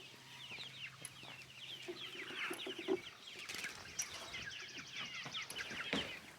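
A flock of meat chickens clucking and peeping in many short, overlapping calls: hungry birds expecting their feed. A fast, even rattle joins in for a couple of seconds in the middle.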